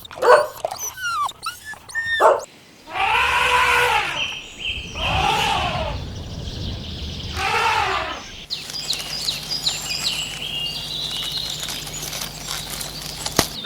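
A dog whining with short squeaky yelps for the first two seconds. Then another animal gives three long calls that rise and fall in pitch, each about a second and a half. In the second half comes a run of high, quick chirps.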